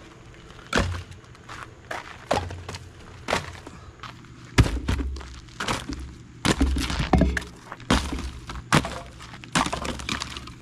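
Split firewood logs knocking together as they are stacked: a string of about a dozen sharp wooden thunks at irregular intervals, louder and closer together in the second half.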